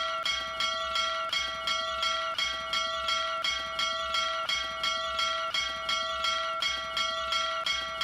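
Small brass bell rung rapidly by its rope clapper: evenly spaced clangs, about three a second, each leaving a clear ringing tone that carries into the next strike.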